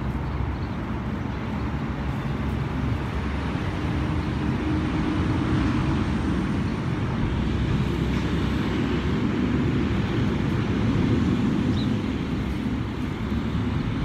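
Steady low outdoor rumble, a little louder in the middle.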